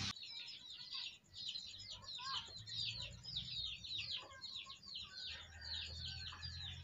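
Birds chirping: a quick, steady run of short, high notes that fall in pitch, about three a second.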